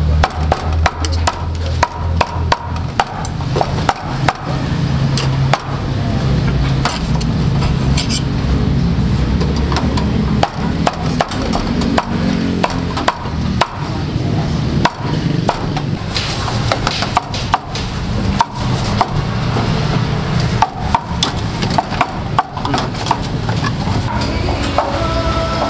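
Meat cleaver chopping cooked beef on a chopping block, with many irregular sharp strikes, over background music.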